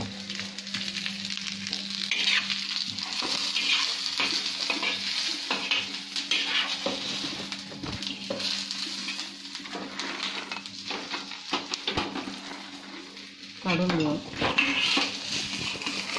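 Masala of whole spices being roasted with onion in a little oil in a pan, sizzling steadily while a spoon stirs and scrapes it in repeated strokes.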